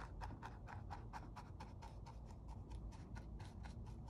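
Wide flat bristle paintbrush scratching across canvas as it lays on black acrylic paint, in quick regular strokes about five a second.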